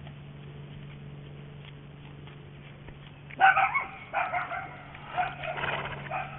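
A dog barking and yipping repeatedly, starting suddenly a little past halfway through, over a steady low hum.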